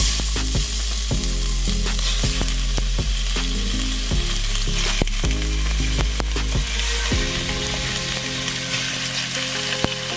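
Cubed raw chicken breast sizzling in hot olive oil as more pieces are dropped into the pot, a steady hiss with scattered sharp pops and spits.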